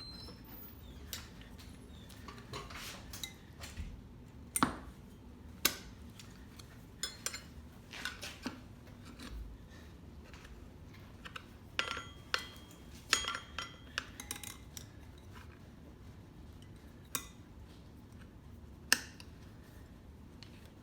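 Steel tire spoons clinking and scraping against a dirt bike's wheel rim as the tire bead is levered on: irregular sharp metal clanks, a few with a short ring.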